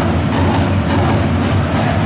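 Football supporters' section singing a player chant in unison, backed by a steady drumbeat.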